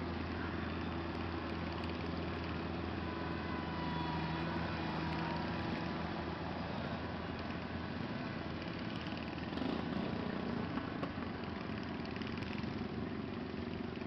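Wheel Horse C120 garden tractor's single-cylinder engine idling steadily.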